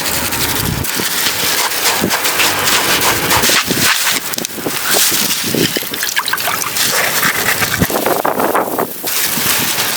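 Strong wind gusting against the microphone, a loud rushing noise broken by many short clicks and rustles.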